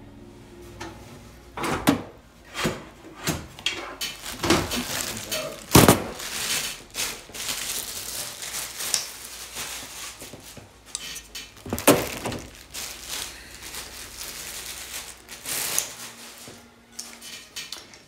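Computer parts being handled around an open PC case: scattered hard plastic and metal knocks and clicks, loudest about six and twelve seconds in, with rustling in between.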